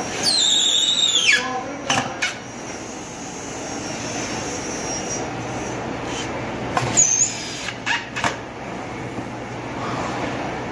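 Cordless drill boring into an MDF panel, its motor whine falling in pitch as the bit bites, followed by a few sharp knocks. A second short burst of drilling and more knocks come about seven seconds in, over a steady low workshop hum.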